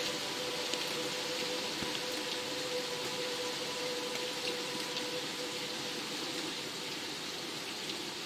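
Steady rainfall: an even hiss of rain with scattered small drop ticks, and a faint held tone underneath.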